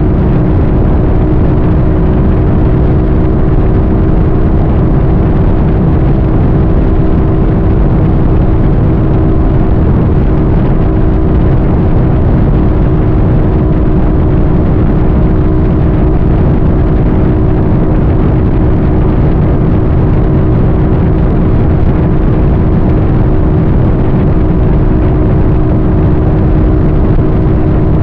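A vehicle travelling at a steady speed: a constant drone at an unchanging pitch over loud rushing wind and road noise.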